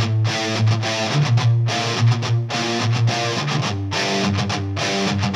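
Background music: electric guitar with distortion over a steady bass line.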